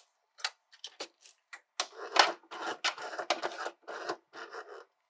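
Sewing machine mechanism clicking and rattling as its handwheel is turned by hand, making slow single zigzag stitches: a series of irregular clicks, growing into busier runs of clicking and rasping about two seconds in.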